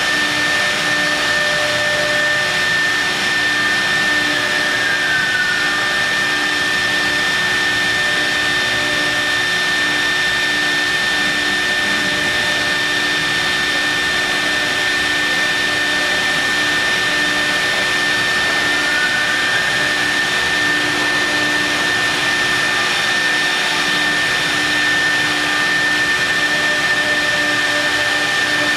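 CNC milling machine running with a vacuum table: a steady high spindle whine over a loud, even hiss, with a low pulsing hum beneath. The whine briefly glides down in pitch about five seconds in, and a faint rising glide comes near two-thirds of the way through.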